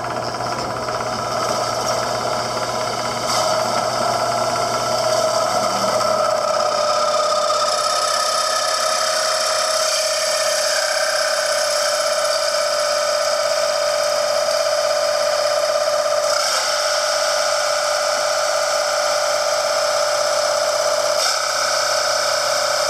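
Power drill boring slowly through a thin plastic wall plate, a steady squealing whine like fingernails on a chalkboard. The bit is melting its way through the plastic more than cutting it.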